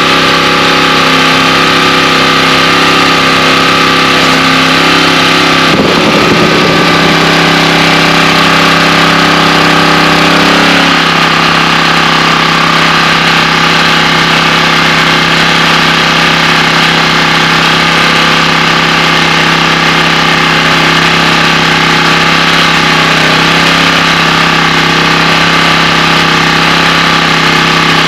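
Champion portable generator's small gasoline engine running steadily, back in operation after a low-oil shutdown and an oil refill. Its note shifts slightly about eleven seconds in.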